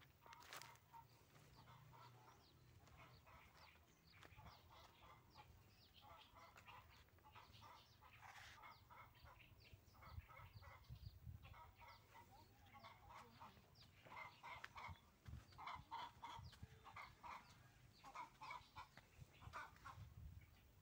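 Chickens clucking faintly, short calls repeated in quick clusters that come more often in the second half.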